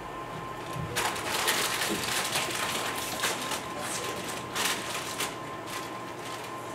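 Potato chip bag crinkling and rustling as it is handled, a dense irregular crackle starting about a second in.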